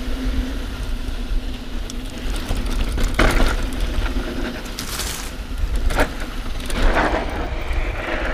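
Mountain bike rolling down a dirt singletrack: steady rumble of tyres and wind on the camera microphone, with several sharp clatters as the bike rattles over bumps.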